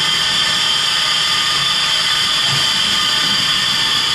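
Steam hissing steadily and loudly from a standing steam tank locomotive, LBSCR Billinton radial tank 0-6-2T No. B473.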